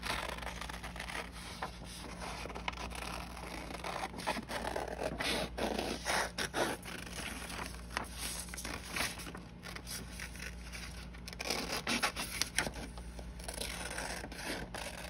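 Scissors cutting through a printed paper template in a long run of short, irregular snips and scrapes.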